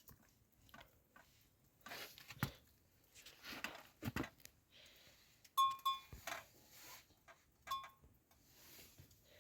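Scattered knocks, scrapes and clinks of metal dishes and utensils, with a short ringing clink a little past halfway and another near the end.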